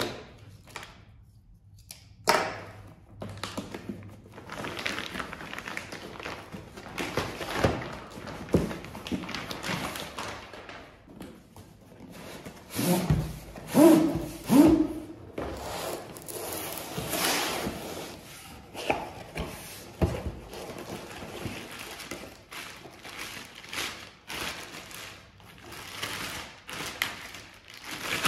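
Packaging being handled: plastic shrink-wrap crinkling and rustling as it is cut and pulled off a long cardboard shotgun box, with cardboard sliding and scraping. Dull thumps of the box against the table come in a cluster about halfway through, the loudest sounds here, and a wrapping rustles near the end as a part is lifted out.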